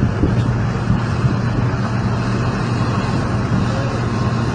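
An engine running steadily with a constant low hum, under a loud, even rush of noise.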